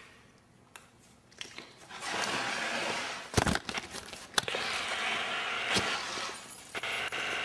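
Stretches of hiss-like noise broken by several sharp cracks, the loudest about three and a half, four and a half and six seconds in, with a run of clicks near the end.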